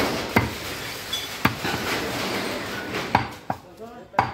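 Butcher's knife cutting fresh beef on a wooden log chopping block, with five sharp knocks of the blade against the wood at irregular intervals over a steady background hiss.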